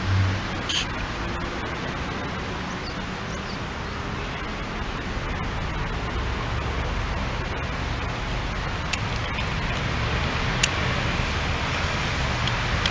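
Steady background noise with a low rumble, and a few faint clicks about nine and eleven seconds in.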